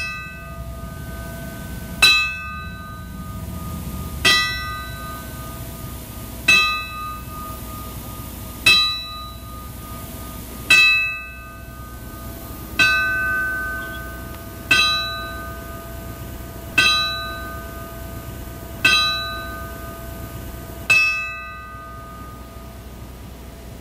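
A bell tolling slowly, struck about once every two seconds, eleven strikes in all, each stroke ringing out and fading before the next.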